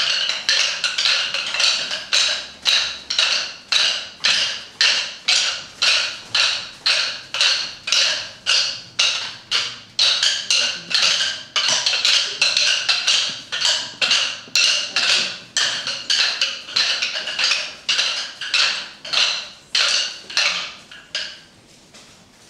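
Pairs of painted wooden kolatam sticks clacking together in a steady rhythm, struck by a group of dancers at about two sharp clacks a second. The clacking thins out and stops near the end.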